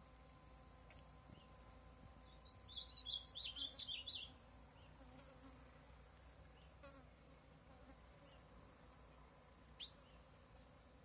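Ultramarine grosbeak (azulão) singing one short, fast warbling phrase of about two seconds, beginning a couple of seconds in. A single sharp click near the end.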